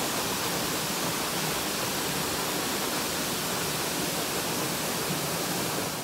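Steady, even rush of the Steinsdalsfossen waterfall, heard from right behind the falling curtain of water.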